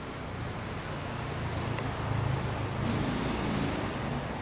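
A motor vehicle's engine hum swelling and then easing, over steady outdoor background hiss.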